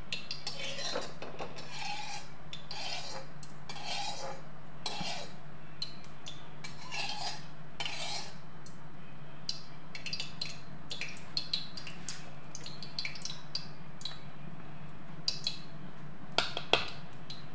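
Metal ladle scraping around the inside of a metal kadhai, spreading ghee over its sides so the noodles won't stick: scraping strokes about once a second, then lighter taps, and two sharper clinks near the end. A steady low hum runs underneath.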